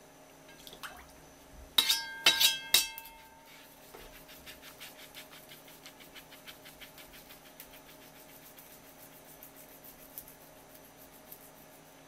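A steel kitchen knife clinks four times in quick succession about two seconds in, sharp and briefly ringing. After that the knife scrapes along a striped jack's skin near the tail in short, even, rapid strokes, about four a second, for several seconds.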